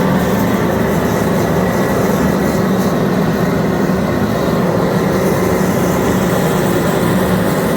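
Loud, steady hum and hiss of a TIG welding arc laying a buttering pass on carbon steel.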